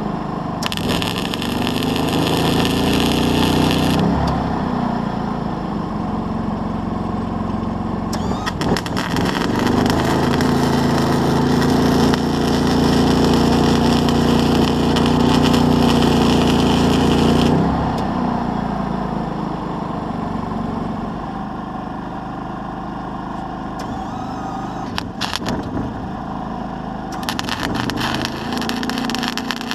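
An engine running throughout, its pitch sweeping up and down a few times as speed and load change. Stretches of added hiss come and go over it.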